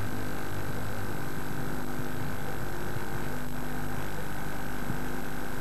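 Steady droning hum with an even hiss over it, unchanging throughout.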